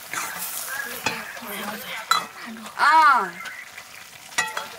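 Metal ladle stirring and scraping potatoes and greens frying in an iron pan, with sizzling and the clink of metal on metal. About three seconds in, one loud, short call rises and falls in pitch.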